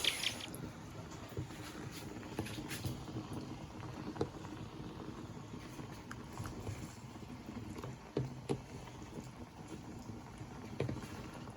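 Pot of soup simmering on the stove, a low steady bubbling, with a few light clicks and knocks of a utensil against the pot scattered through.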